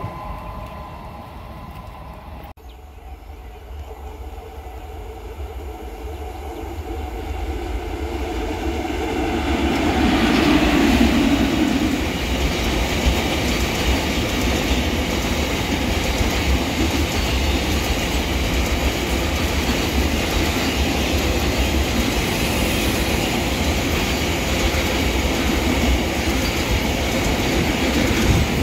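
A long container freight train rolls past close by. Its sound builds over the first ten seconds or so as the train arrives, then settles into a steady rumble with the clickety-clack of wagon wheels on the rails. In the first couple of seconds a receding train fades out, cut off abruptly.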